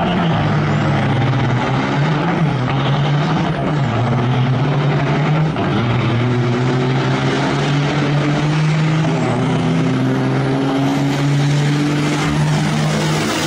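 Diesel engines of two semi trucks running at full throttle in a drag race, their pitch holding and then stepping up or down every second or two as they pull through the gears.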